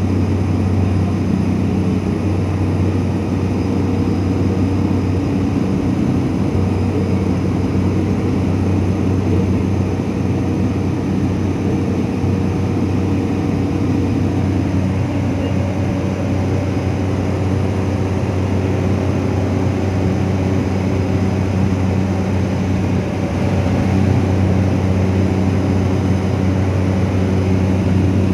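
Steady drone of a small propeller airliner's engine heard from inside the cabin in flight: a deep, even hum with steady tones above it.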